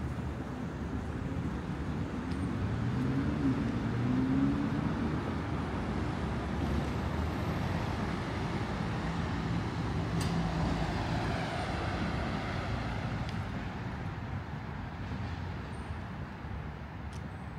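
Road traffic on a city street: a motor vehicle's low engine drone swells to a peak about three to four seconds in as it passes, then another vehicle goes by about ten to twelve seconds in over a steady traffic hum.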